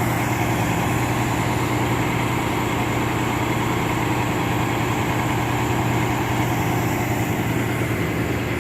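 Fire engine's diesel engine idling: a steady, even low hum that does not change.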